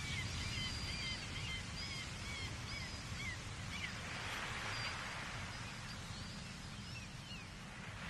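Gulls calling in quick, short, high cries over the steady wash of ocean surf. A wave surges about four seconds in, and the calls thin out near the end.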